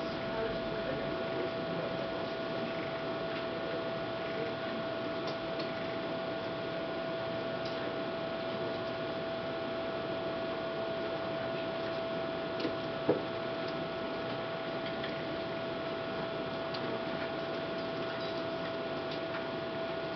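Steady mechanical hum and hiss with a constant high whine, fine ticking texture, and a single sharp click about two-thirds of the way through.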